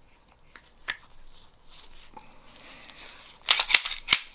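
Hard clicks of a Glock pistol being handled for field-stripping: one click about a second in, a faint rubbing, then three loud clicks in quick succession near the end.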